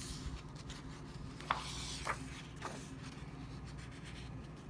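A page of a picture book being turned by hand: paper sliding and rustling, with two short ticks about a second and a half and two seconds in.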